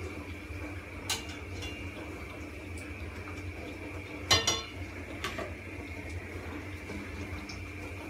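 A metal utensil clinking against a stainless frying pan and plate three times, the loudest clink about four seconds in with a short ring, over a steady low hum.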